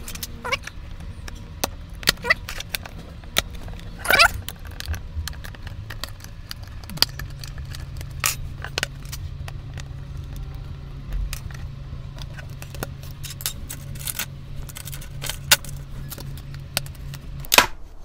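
Plastic snap-fit clips of an Acer Aspire Switch 10 tablet's back cover clicking and popping loose, one after another at irregular intervals, as a plastic spudger pries round the edge. The loudest snaps come near the end.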